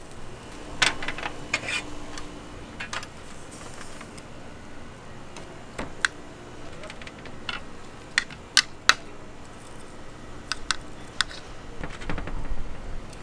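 Irregular sharp clicks and light clinks of hard objects knocking together, a quick run of three about eight to nine seconds in, over a steady background hum.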